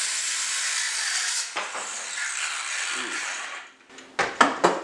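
Ryobi One+ cordless circular saw with a new Diablo blade cutting through a wooden board, the cut ending about three and a half seconds in. Several sharp knocks follow near the end.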